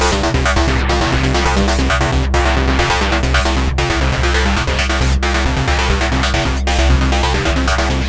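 Korg volca synthesizer playing a looping electronic sequence: fast stepping notes over a steady deep bass, in a trance/techno style. The pattern drops out briefly about every second and a half.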